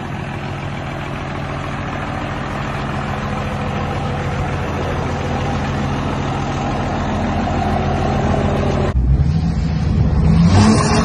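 Diesel engine of a lifted second-generation Dodge Ram dually running steadily as the truck pulls a fifth-wheel trailer slowly past, growing gradually louder. About two seconds before the end it cuts off suddenly and gives way to a louder, rougher rumble.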